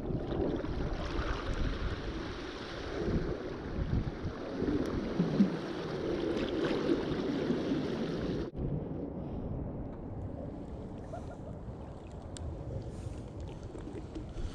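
Wind buffeting the microphone over lake water lapping at the shore, a steady rumbling noise. About eight and a half seconds in it changes abruptly to a quieter, thinner wash of the same.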